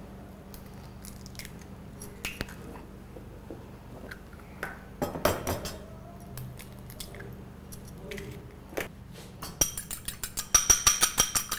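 A few scattered taps and knocks of kitchenware against a bowl, then, from about ten seconds in, a quick steady run of clinks as a metal utensil beats eggs in a glass bowl.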